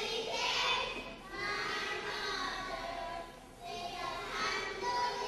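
A group of young children singing together in unison, in phrases with short breaks between them.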